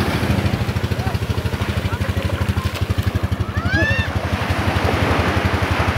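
A small engine running steadily with a rapid, even chugging beat, with a short rising-then-falling vocal call over it about three and a half seconds in.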